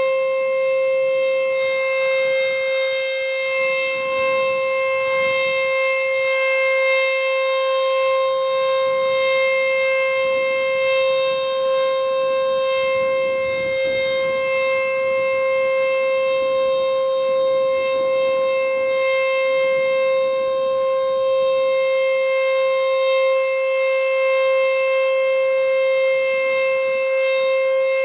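ACA Screamer nine-port outdoor warning siren sounding at full speed during a test. It holds one steady, loud, high wail with no rise or fall in pitch.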